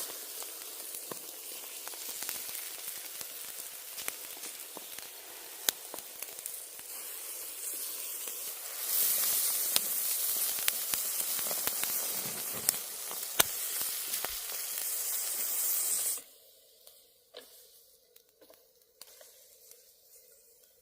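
Food sizzling in hot fat in a pan, a steady hiss with scattered sharp pops. It gets louder about halfway through and cuts off suddenly near the end, leaving only faint sounds.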